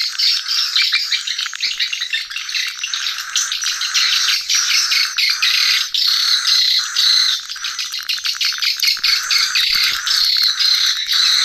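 Swiftlets twittering: a dense, continuous chorus of rapid, overlapping high chirps and trills with no pauses.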